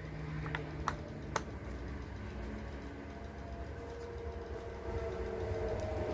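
Three short plastic clicks in the first second and a half as the cover of a Magpul Maglink magazine coupler is fitted, over a steady background hum.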